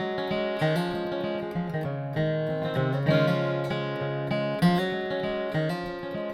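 Acoustic guitar strumming chords in an instrumental break between the sung verses of a slow gospel song.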